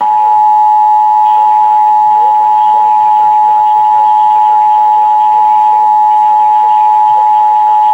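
Emergency Alert System two-tone attention signal (853 Hz and 960 Hz together), held steady for about eight seconds and cutting off sharply at the end. It marks the start of a broadcast emergency alert, here a Flash Flood Warning.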